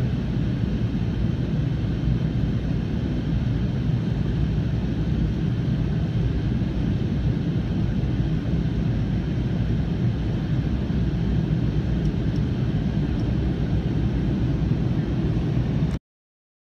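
Boeing airliner's jet engines and rushing air heard inside the cabin during the climb after takeoff, a steady low rumble that cuts off abruptly near the end.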